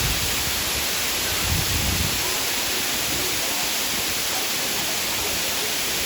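Waterfall with a steady, hissing rush of falling water, a little low rumble in the first couple of seconds.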